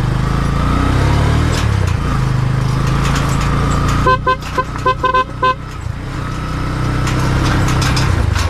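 Small motorcycle engine running while ridden, its pitch shifting up and down. About four seconds in, a horn sounds in a quick series of short beeps lasting over a second.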